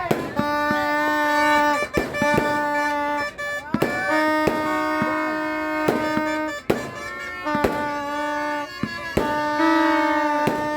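A fireworks cake firing sharp bangs at uneven intervals, about ten in all, over a string of held, reedy, bagpipe-like tones, each lasting one to two and a half seconds.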